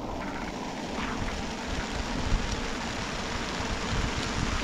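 Wind buffeting the microphone in a deep rumble over a steady hiss of rain falling on plastic sheeting, with a single sharp tap about halfway through.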